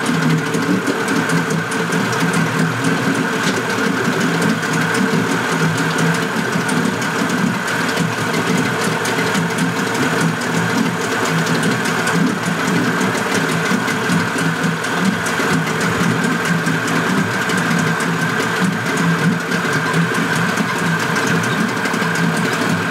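Spirit 20 HP two-stroke outboard motor running steadily on a test stand with its cowling off, with an even mechanical chatter.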